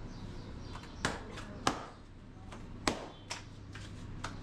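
Naan dough being slapped and patted by hand on a floured counter and between the palms. A few sharp slaps, the loudest about a second and a half in and again near three seconds, over a faint steady background hum.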